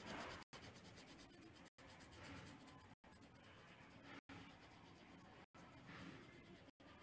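Faint scratching of a felt-tip marker on paper as it colours in a drawing. The sound cuts out briefly about every second and a quarter.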